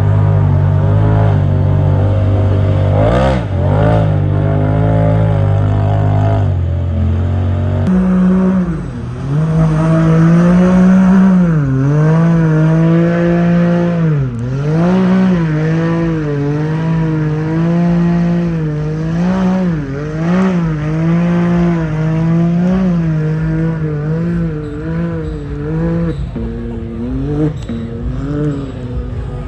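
Off-road race vehicle engine revving up and down repeatedly. A steady, lower engine drone holds for the first several seconds and breaks off about eight seconds in.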